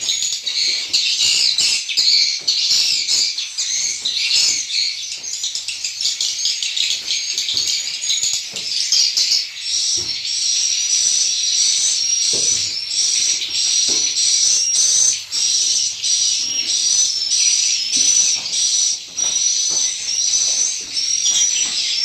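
Dense, continuous twittering of swiftlets in a swiftlet house. From about ten seconds in, a short high chirp repeats rapidly over the chatter.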